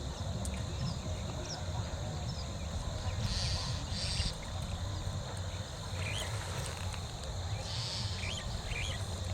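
Outdoor ambience: a steady low rumble with a few short bird chirps about six seconds in and near the end, and two brief hissing bursts, one about three seconds in and one about eight seconds in.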